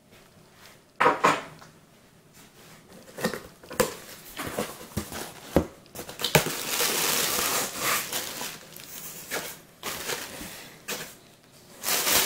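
A cardboard shipping box being handled and opened, with scattered knocks and scrapes of its flaps. From about halfway there is a long stretch of rustling and crinkling as the flaps are folded back and the plastic air-cushion packing inside is handled.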